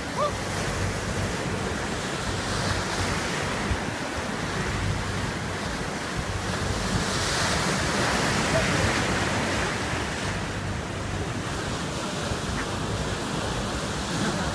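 Rough sea surf: waves breaking and washing in continuously, swelling loudest about halfway through.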